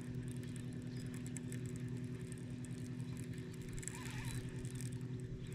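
Electric bow-mounted trolling motor running, a steady low hum that holds an even pitch.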